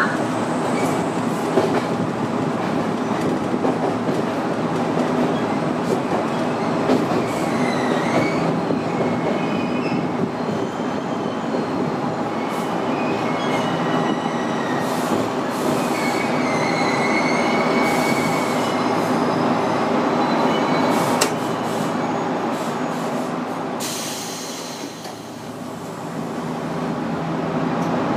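Iyo Railway 700 series electric train running along the track, heard from inside behind the driver's cab: a steady motor hum and wheel rumble, with wavering wheel squeals in the middle. It dips briefly in loudness near the end.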